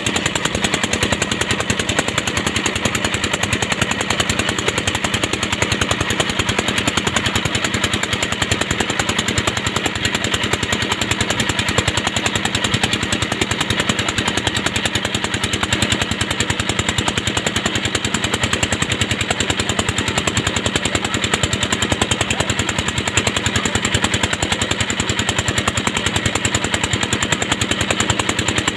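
Motorboat engine running steadily with a rapid, even beat.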